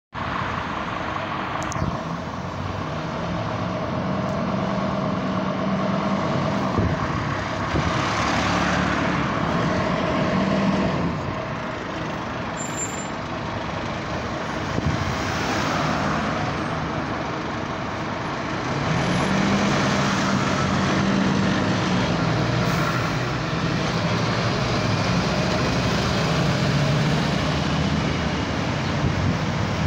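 Scania fire engine's diesel engine running as it pulls out of the station bay and drives off, its revs rising and falling in several waves through the gears. A short air-brake hiss comes about two seconds in.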